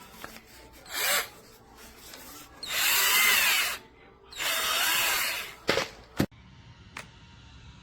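FADAKWALT 12V cordless drill run in three trigger pulls: a short blip about a second in, then two longer runs whose motor whine rises and falls in pitch. Two sharp clicks follow near the end.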